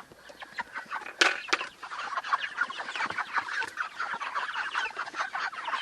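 A flock of Cornish cross meat chickens clucking and peeping in many short, high calls as they crowd in to eat wet chick-starter mash. A couple of sharp taps come about a second in.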